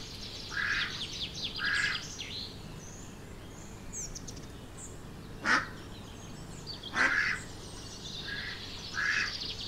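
Duck quacking repeatedly with small birds chirping, as a pond-and-nature sound effect. Two calls about halfway through stand out louder than the rest.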